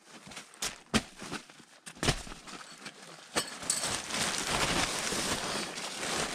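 Nylon tent fabric and gear rustling and crinkling as things are handled and set down inside the tent. There are a few sharp knocks in the first half, then a steady crinkly rustle from a little past the middle.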